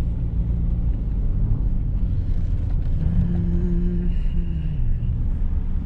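GMC Sonoma pickup truck driving, a steady low engine and road rumble, with a brief higher hum about three seconds in.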